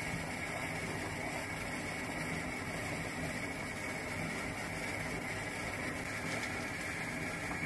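Steady hiss with a low hum underneath, even throughout, with no distinct events.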